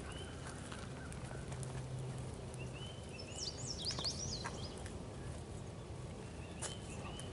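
Horses walking on a soft dirt paddock, their hooves making faint scattered thuds, over steady outdoor background noise. A bird chirps a few times and sings a quick run of rising and falling notes about halfway through.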